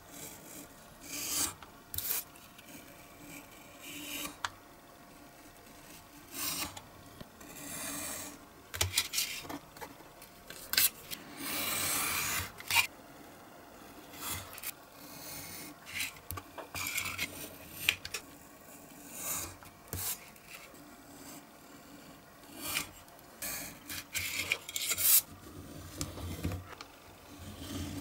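Snap-off utility knife slicing through printed paper along a metal ruler: a series of short scratchy cutting strokes, one longer stroke about halfway through.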